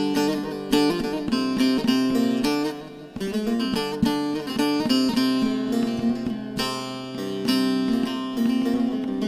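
Instrumental break of a Turkish folk song (türkü): plucked and strummed string instruments play a quick run of melody notes over chords, dipping briefly about three seconds in.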